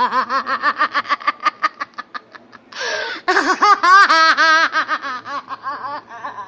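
A young girl laughing: a fast run of 'ha-ha-ha' that trails off, a sharp breath in about three seconds in, then a second, louder run of laughter that fades toward the end.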